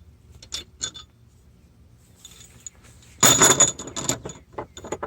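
Steel cylinder head bolts from a 6.7 Powerstroke diesel clinking against each other and on metal as they are pulled out and handled: a few single clinks, then a denser rattling clatter about three seconds in.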